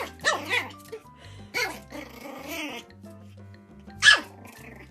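Tiny Pomeranian puppy giving several short, sharp yaps, the loudest near the end, over background music.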